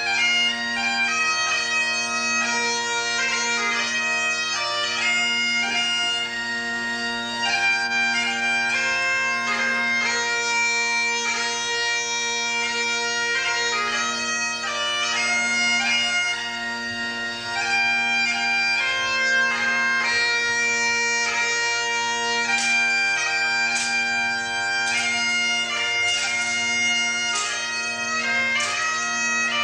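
Highland bagpipes playing a dance tune over their steady drones. In the last several seconds, a series of sharp clicks as the dancers' claymore swords are struck together.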